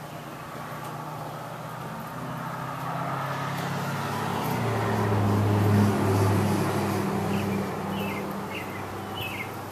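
A motor vehicle passing by, its low engine hum swelling to a peak about five to six seconds in and then fading away. A bird chirps a few times near the end.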